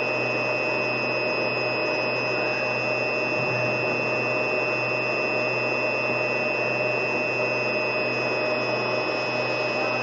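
Steady hiss with several constant humming tones, unchanging throughout, with no speech or distinct events.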